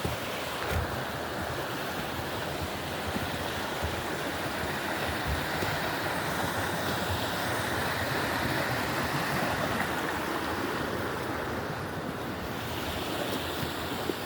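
Steady rush of flowing water in a stream.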